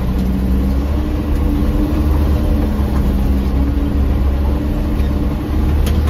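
Dump truck's diesel engine running steadily while driving, heard from inside the cab as a deep drone with a held hum, and one brief click near the end.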